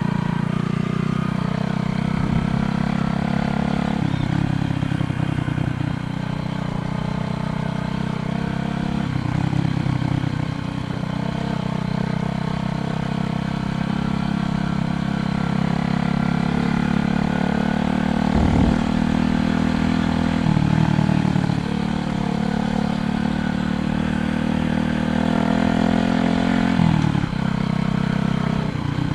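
Steady low rumble of riding a bicycle along a road, rising and falling every few seconds.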